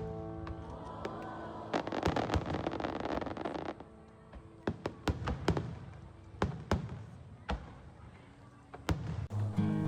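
Fireworks going off: a dense crackling hiss about two seconds in, then scattered sharp pops and bangs. Piano music fades out at the start and guitar music begins near the end.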